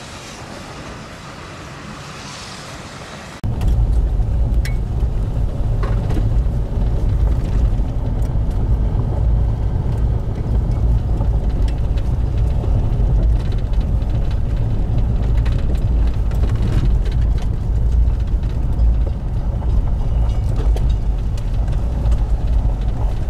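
A fainter steady hiss, then about three and a half seconds in a car's steady low engine and road rumble, heard from inside the cabin, starts suddenly and runs on.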